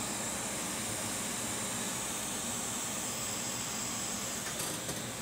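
Steady fan-like hiss of air from bench equipment, with a couple of faint clicks near the end as the board parts are handled.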